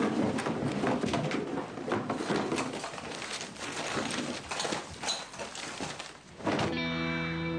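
Clattering and rustling of household objects being rummaged through and tossed about on a table, many small knocks in quick, irregular succession. Near the end it gives way suddenly to a steady sustained drone of several held tones.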